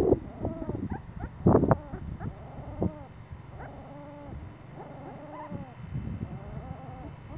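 Young puppies whimpering: a string of short cries, each rising then falling in pitch, a few each second, loudest in the first two seconds.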